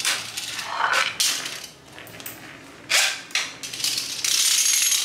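Spinning tops on a hard tile floor: several sharp knocks and clacks in the first three seconds or so, then from a little past four seconds a steady, high, rasping whirr of a battle top spinning on the tiles.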